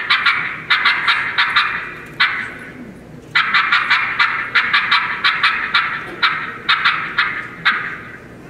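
Turkey call imitating the cutting of an excited hen turkey: fast, sharp, irregular clucks in quick runs with short pauses between them, stopping near the end.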